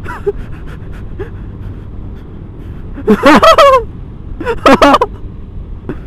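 Wind rushing over the camera microphone with a motor scooter's engine running underneath while riding, broken by two loud bursts of short calls, one about three seconds in and another about a second later.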